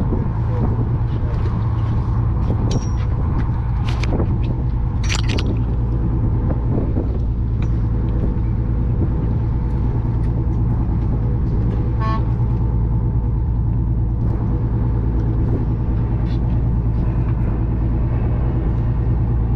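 Charter fishing boat's engine running at a steady, deep hum, with a few sharp clicks about four and five seconds in.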